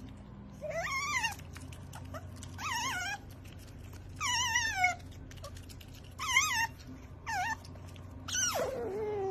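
Pet otter squeaking: five short, high, wavering calls a second or two apart, then a lower, longer call near the end, made while a peeled egg is held out to it, as begging for food.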